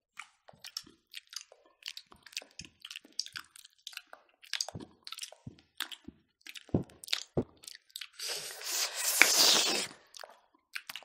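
Close-miked chewing and crunching of people eating smoked pork and rice by hand: a string of short, sharp mouth clicks and crunches. A louder, noisier stretch of eating sound lasting about two seconds comes near the end.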